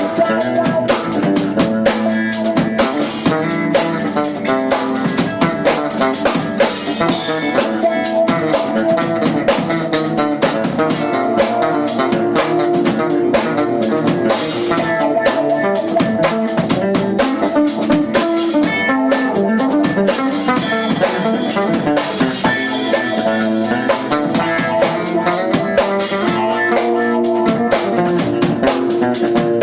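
Live fusion quartet playing instrumental music: drum kit with rimshots keeping a steady beat under electric guitar, electric bass and keyboards.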